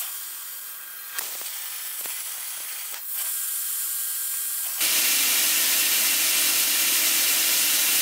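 CNC plasma cutter hissing, with a few sharp clicks early on. About five seconds in, the hiss jumps to a louder, steady rush as the arc cuts through steel plate.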